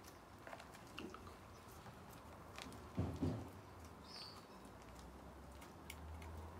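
Faint scratching and crumbling as a wooden chopstick is raked through the soil and roots of a bonsai root ball, loosening soil that patters into a plastic tray, with small scattered clicks. A brief louder bump about three seconds in.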